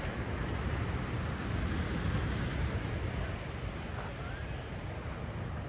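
Steady beach noise of wind buffeting the microphone over the wash of surf.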